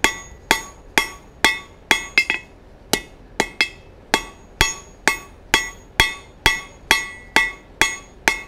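Hand hammer striking a red-hot 4142 steel bar on an anvil, about two blows a second, each blow leaving a short metallic ring. The smith is drawing a taper on the working end of a hot-cut chisel.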